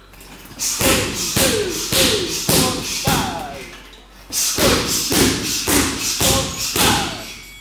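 Muay Thai strikes landing in two quick flurries of about seven and six blows, with a short pause between them. Each blow is a sharp thud with a short vocal grunt or shout.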